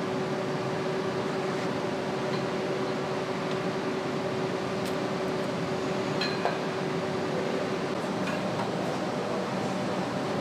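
Steady mechanical hum of an engine assembly hall, like ventilation or machinery running, with a few faint clinks of tools or parts about five and six seconds in. A steady tone in the hum drops out near the end.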